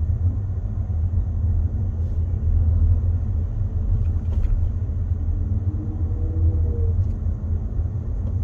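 Steady low rumble of road and engine noise inside a moving Kia car's cabin.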